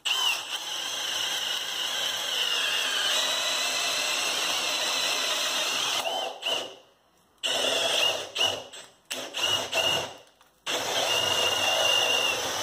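Milwaukee M18 Fuel cordless drill boring a 1-inch self-feeding spade bit through three glued-together 2x4s, its motor running steadily under load for about six seconds. After a short pause comes a series of brief trigger bursts, then a second steady run through the wood near the end.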